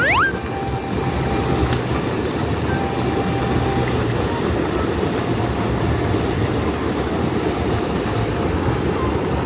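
Shallow creek rushing over stones: a steady, even water noise, heavy in the low end.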